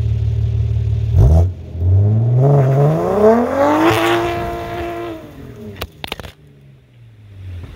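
BMW B58 turbocharged 3.0-litre inline-six heard at its exhaust tips. It idles, blips once about a second in, then revs up over about two seconds, holds briefly and falls back to idle. A few sharp clicks or pops come as the revs drop.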